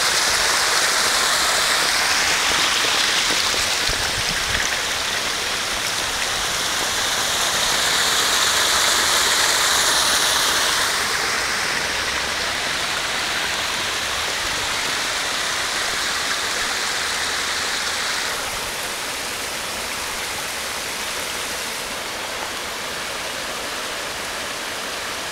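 Sewer manhole overflowing: water gushes up through the holes in the cover and rushes down a grassy bank in a steady splashing torrent. This is a sanitary sewer overflow after a heavy downpour. The rush drops a step quieter about halfway through and again later.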